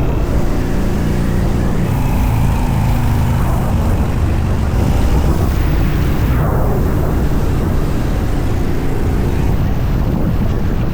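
Yamaha Bolt's air-cooled V-twin running steadily under way, mixed with the rush of wind over the rider, with a pitch that drops about six seconds in.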